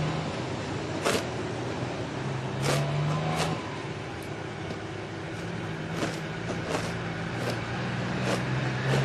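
Road traffic passing on the street: a steady rush of cars with a low engine hum that comes and goes, broken by about eight sharp clicks.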